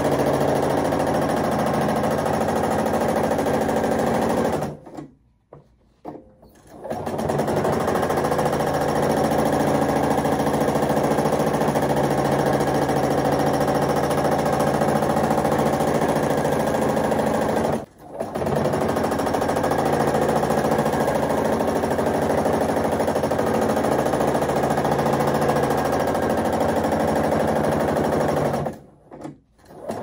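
Sewing machine running fast and steadily while free-motion quilting, the needle stitching through the quilt layers. It stops three times: for about two seconds some five seconds in, for a moment around the middle, and again near the end.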